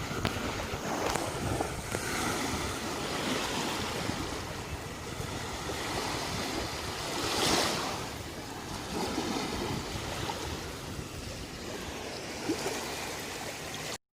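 Sea waves washing onto a beach, a steady rush with one louder wave surging about halfway through. The sound cuts off abruptly near the end.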